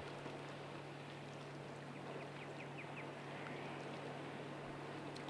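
Faint steady rush of a wide, muddy river under a steady low hum, with a few short bird chirps about two seconds in.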